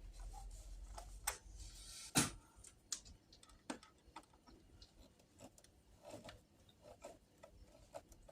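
Scattered sharp clicks and knocks of storm door latch hardware being handled and fitted, the loudest a little over two seconds in.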